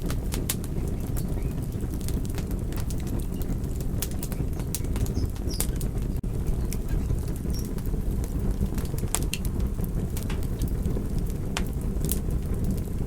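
Campfire burning: a steady low rush of flames with scattered sharp crackles and pops at irregular intervals.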